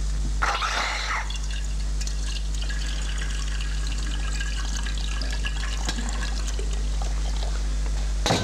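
Tea poured from a metal teapot into a cup, a trickle lasting a few seconds, over a steady low electrical hum.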